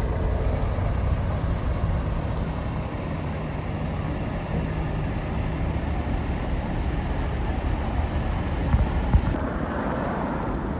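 Tour bus diesel engine running steadily, a low rumble, with a couple of short knocks near the end.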